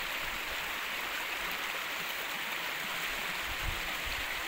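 Steady, even hiss of water noise with no distinct splashes or knocks.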